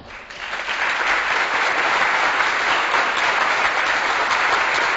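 Applause from a crowd, swelling up during the first second and then holding steady.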